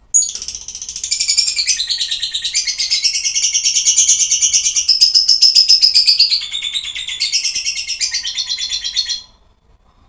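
Caged lovebird singing one long unbroken, rapid, high-pitched chattering song that starts at once and stops abruptly about nine seconds in.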